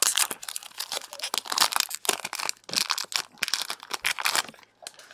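Foil Digimon card booster pack wrapper crinkling and tearing as it is opened, in rapid irregular crackly bursts that die away about four and a half seconds in.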